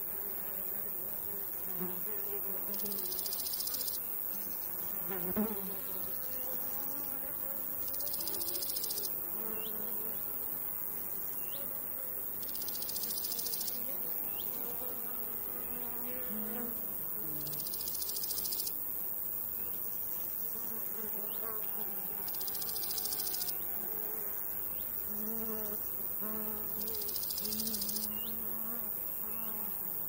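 Summer meadow insects: flying insects buzzing with wavering pitch, over a grasshopper's high rasping song about a second long that repeats every four to five seconds. One short tap about five seconds in.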